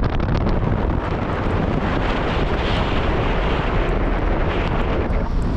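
Steady, loud rush of wind buffeting the camera's microphone on a ski run.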